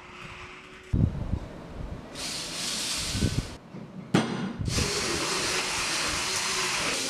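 Red cordless drill spinning the burrs of an IKEA Metallisk hand coffee grinder to grind coffee. It gives a steady noise that starts about two seconds in, stops briefly, and starts again just before five seconds. Knocks from handling the grinder and fitting the drill come about a second in and again near four seconds.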